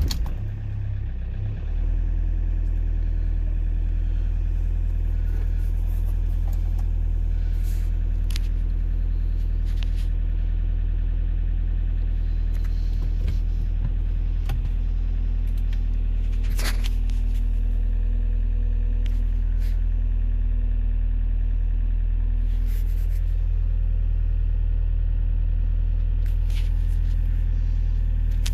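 Toyota Previa's 2.0 D-4D four-cylinder turbodiesel just after a cold start at about freezing. Its revs are unsettled for the first couple of seconds, then it holds a steady cold idle, with a few faint clicks over it.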